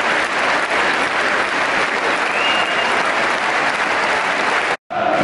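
A large stadium crowd applauding, a dense, steady clatter of clapping. Near the end the sound drops out abruptly for a split second.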